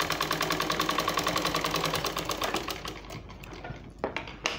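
Black Rita straight-stitch sewing machine running a seam, its needle stitching in a rapid, even rhythm that slows and stops about three seconds in. A few light clicks of the fabric and machine being handled follow, with one sharp knock near the end.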